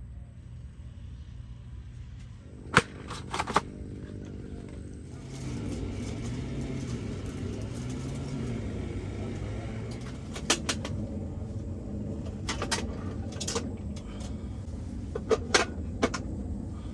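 A motor vehicle engine running, its low pitch wavering slightly, with a few sharp clicks and knocks scattered through.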